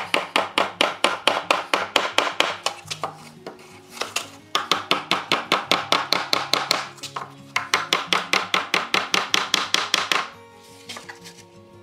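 Rapid hammer blows on nails in old wooden wagon boards, about five a second, in three runs with short pauses between, with a heavy iron held beneath the boards.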